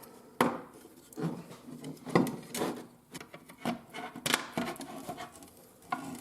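Clicks, taps and rubbing as a plastic interior door handle and its metal linkage rod are handled and fitted together, a sharp click about half a second in and the loudest one a little past four seconds.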